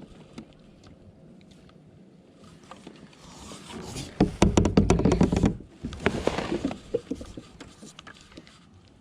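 Close rustling with a quick run of knocks and clicks, loudest about four to five and a half seconds in, with a second shorter burst a moment later.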